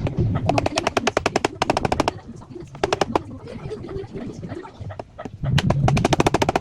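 A power screwdriver driving screws into the drawer's wood, in two bursts of rapid clattering: one from about half a second to two seconds in, and another starting near the end over the motor's hum.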